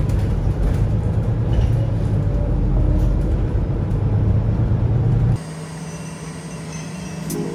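Low, steady rumble of a city bus's engine and running gear heard from inside the passenger cabin. About five seconds in it cuts off to a much quieter steady hum, and music starts near the end.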